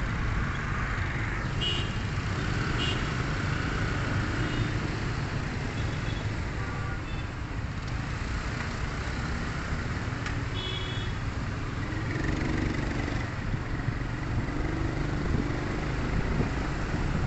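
Dense road traffic of motor scooters and cars running in slow traffic, heard from within it as a steady low rumble of engines and tyres. A few short high-pitched tones come about two seconds in and again around ten seconds.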